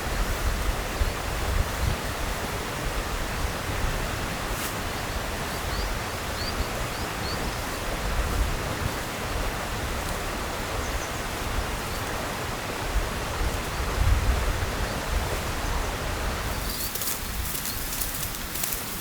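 Steady outdoor rushing noise with an uneven low rumble of wind buffeting the microphone, and a few faint high chirps about six seconds in. The rushing thins out near the end.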